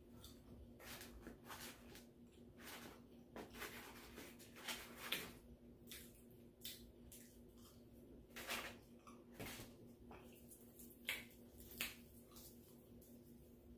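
Faint eating sounds from a person eating fried chicken and French fries: scattered short clicks and smacks of chewing and handling food, over a low steady hum.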